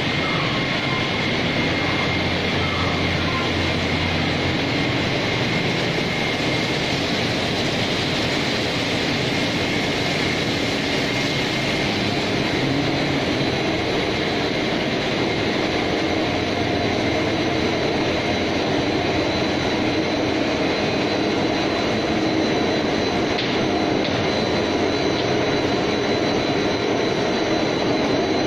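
Machinery of a wire electroplating production line running: a loud, steady mechanical noise with thin high whines over it.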